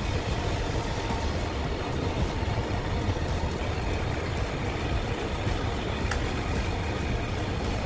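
Large ventilation fan running, a steady low rumbling rush, with a brief click about six seconds in.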